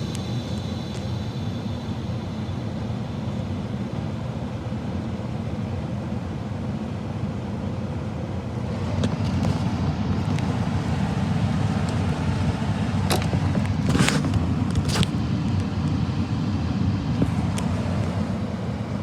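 Gas furnace's fan motor running steadily after the burner shuts off, cooling down the heat exchanger; it grows louder about nine seconds in, and a few sharp clicks come near the middle of the second half.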